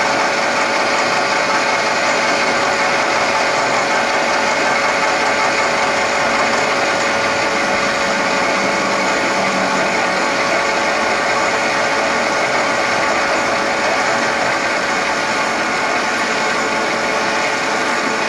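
Acer Ultima 3VK milling machine spindle running in low range while an insert milling cutter takes a cut across a metal part. The cut is steady, with a constant tone through the cutting noise.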